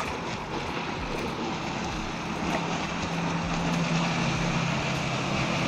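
Steady engine drone of a passing motorboat, growing gradually louder from about halfway in, over a steady hiss of wind and water.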